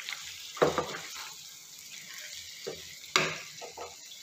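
Wooden spatula stirring chicken pieces and yogurt through sizzling masala in a kadai, with a steady sizzle underneath and two louder strokes against the pan, one about half a second in and one about three seconds in.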